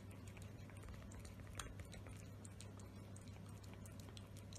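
A cat chewing and lapping wet food from a plate: faint, irregular small clicks and smacks, one a little louder about a second and a half in, over a faint low hum.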